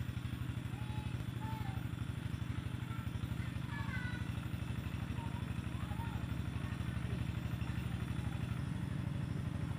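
An engine running steadily, a low pulsing drone with a fast even beat, with short high chirps scattered over it.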